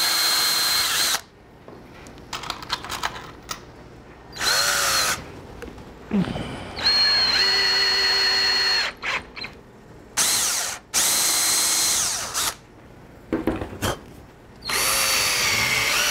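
Yellow DeWalt cordless drill running in about six short bursts of a second or two each, with a steady high whine, as it works screws into the melamine-covered particle board top. Small clicks and knocks come between the bursts.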